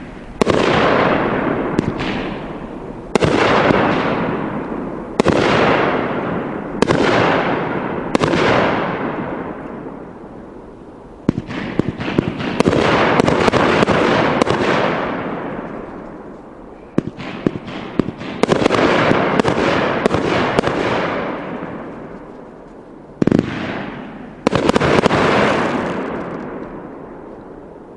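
Raccoon Fireworks 'Mr. Right' 20-shot, 500-gram firework cake firing: sharp shots and breaks come every one to two seconds, each followed by a long fading crackle and sizzle of the crackling and strobe stars. Tight clusters of sharp reports come about a third of the way in, past halfway, and again near the end.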